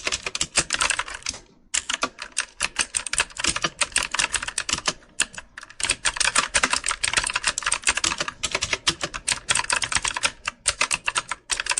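Fast, continuous typing on a computer keyboard: a dense run of irregular key clicks with two brief pauses, one after about a second and a half and one near the middle.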